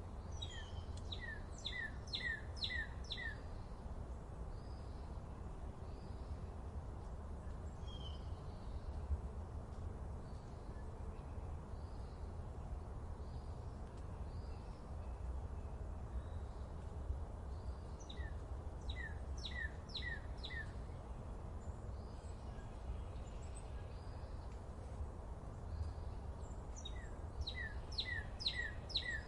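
A songbird singing a short, quick phrase of five or six high notes, each sweeping down, three times: at the start, about 18 seconds in and near the end. Fainter chirps from other birds come in between, over a steady low background rumble.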